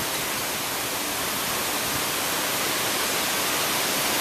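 Strong storm wind blowing steadily, a dense, even rushing hiss.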